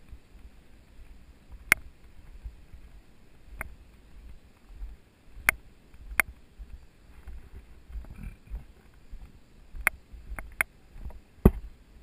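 Bicycle rolling over a rough dirt forest track: sharp, irregular clicks and knocks from the bike rattling over bumps, about eight of them, with a low rumble of wind on the microphone.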